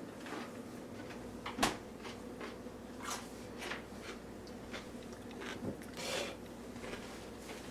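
Scattered light clicks and knocks of plastic kitchen items being handled, the sharpest about two seconds in, over a faint steady hum. No blender motor is running.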